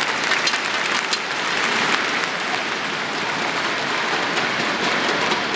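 Crowd applauding in a large sports hall, a steady patter of many hand claps.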